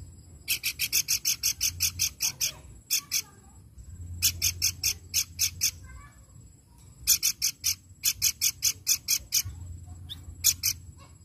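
Pelanduk bukit babbler calling in rapid series of sharp, high, harsh notes, about six a second, in three bursts of one to three seconds with a few stray notes near the end.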